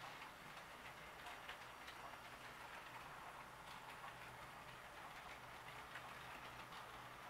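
Faint, irregular clicking of an HO-scale model train's wheels running over the rail joints, over a low steady hum.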